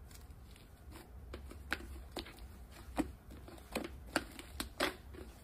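Slime being squeezed and folded by hand, giving faint, irregular small clicks and pops, about a dozen over a few seconds.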